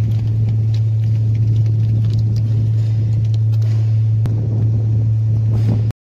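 Steady low mechanical drone at an unchanging pitch, with faint scattered clicks above it; it cuts off abruptly just before the end.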